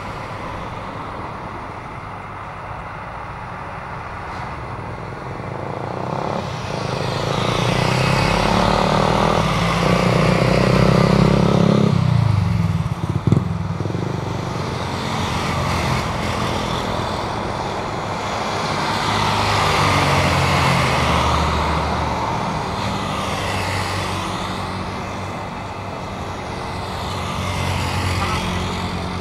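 Jet airliner engines passing on landing, a steady rumble that swells and fades several times, mixed with passing road traffic. There is a sharp knock about 13 seconds in.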